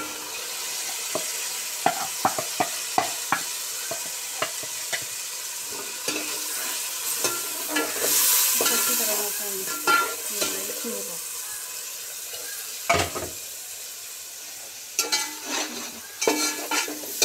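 Tomatoes, green chillies and spices sizzling in hot oil and fried onions in a metal pot, stirred with a slotted metal spatula that scrapes and clicks against the pot. The sizzle swells about halfway through, and there is one heavier knock a little later, then a run of quick clicks near the end.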